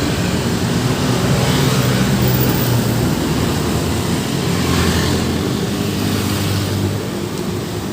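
Road traffic with a large vehicle's engine running close by, a steady low drone over tyre and traffic noise that eases off about seven seconds in.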